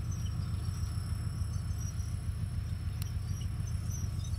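2TE10M diesel locomotive's two-stroke 10D100 diesel engines running under load while hauling a freight train, a steady low rumble. Faint high chirping sits above it.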